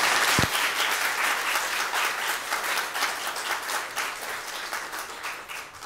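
Audience applauding, the clapping dying away gradually toward the end. A single low thump sounds about half a second in.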